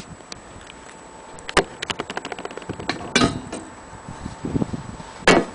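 Knocks and clinks from handling a brass dome mantel clock and its glass dome: a string of small irregular clicks with three louder knocks.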